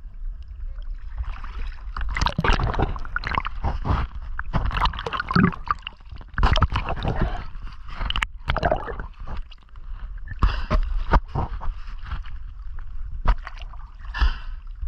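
Water sloshing and gurgling around the microphone in irregular bursts over a low, steady rumble.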